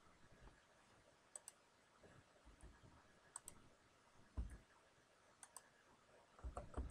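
Faint computer keyboard and mouse clicks as answers are typed into boxes. The clicks are scattered, some coming in quick pairs, with a few soft low thumps near the end.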